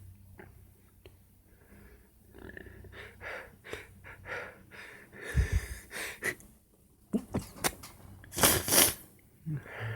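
A person's wheezy, catching breaths and sniffs as a sneeze builds, with a low thump about five and a half seconds in, then a double sneeze about eight and a half seconds in, the loudest sound.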